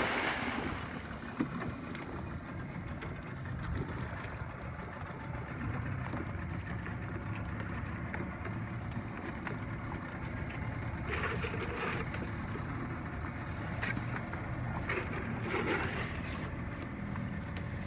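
A small fishing boat's motor running steadily under way, with water and wind noise; two brief louder whooshes come in the latter half.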